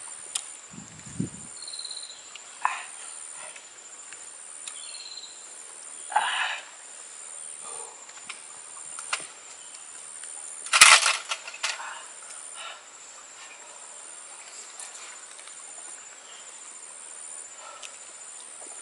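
Steady high buzzing of insects, rising and falling in pulses, with scattered rustles and light knocks of someone moving on bare rock. The loudest is a sharp knock and a scuffing burst about eleven seconds in.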